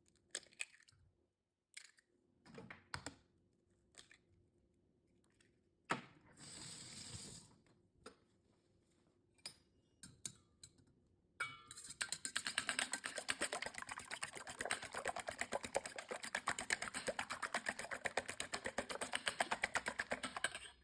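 Eggs being cracked and then whisked in a bowl: a few scattered taps and clicks, then about halfway through a long run of rapid, even clicking strokes of the whisk against the bowl.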